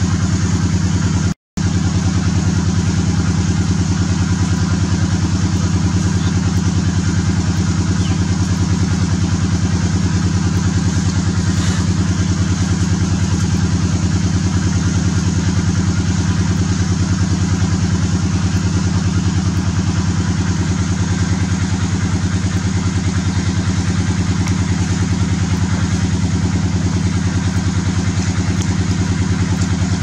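A small engine idling steadily with a fast, even low pulse. It cuts out completely for an instant about a second and a half in.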